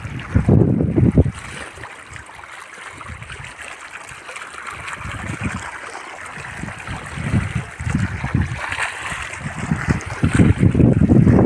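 Steady rush of flowing river water, with low gusts of wind buffeting the microphone in the first second and again near the end.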